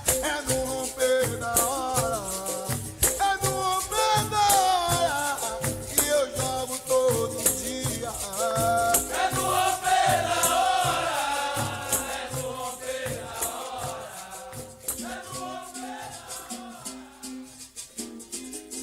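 Capoeira song: a voice singing over a berimbau and caxixi rattle keeping a steady beat. The singing stops about two-thirds of the way through and the music fades down.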